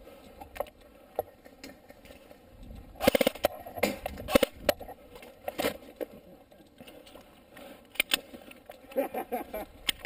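Scattered sharp clicks and knocks from airsoft play, with a loud quick cluster of strokes about three seconds in and a few more single knocks later.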